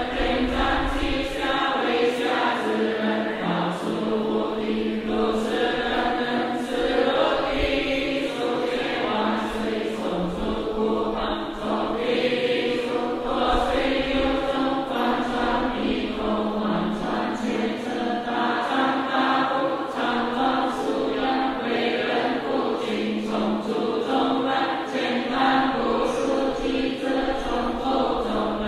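A monastic assembly chanting a Chinese Buddhist repentance text in unison on a near-monotone pitch, with a steady beat of sharp knocks keeping time.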